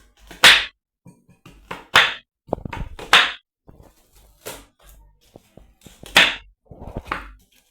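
Onions being chopped: single sharp chopping strikes on a cutting board, spaced irregularly about a second apart, about seven in all.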